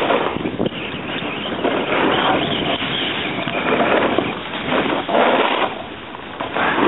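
Wind rushing over the microphone while riding downhill, mixed with a snowboard's edges scraping across packed snow, in surges that rise and fall every second or two.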